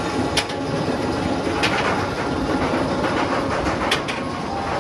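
Bolliger & Mabillard sit-down roller coaster train rolling out of the station and up the chain lift hill with a steady mechanical rumble. Three sharp metallic clanks are spread through it.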